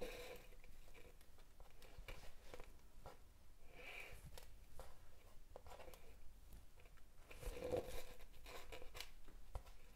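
Faint rustling and light ticks of waxed polyester threads being handled and pulled tight while tying macramé knots, with a slightly louder scuff about four seconds in and another near eight seconds.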